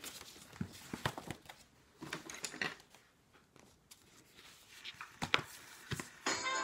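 Scattered light clicks, taps and rustles of things being handled, as a cardboard picture card is picked up and held up. A song starts playing near the end.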